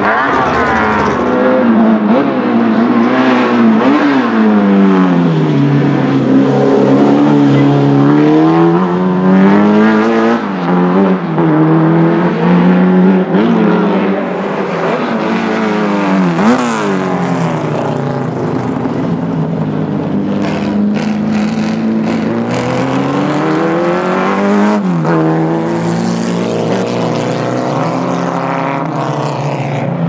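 Alfa Romeo Giulia GTAm Group 5 race car's 2.0-litre four-cylinder engine at full throttle, its note climbing and falling again and again as it accelerates, shifts and backs off. Three times it passes close, with the pitch dropping sharply.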